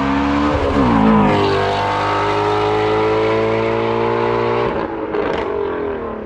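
Car engine running hard, its pitch rising about a second in, holding high and steady, then falling away near the end.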